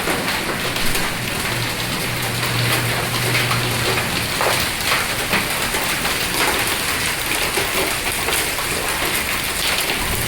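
Heavy rain and hail pelting down: a dense, steady hiss of rain with many sharp separate strikes of hailstones mixed in.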